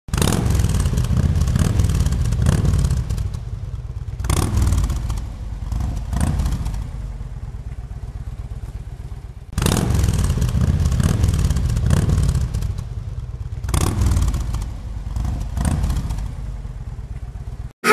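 Motorcycle engine running and revving, the revs rising and falling several times, with a sudden jump in level about halfway through. It cuts off abruptly at the end.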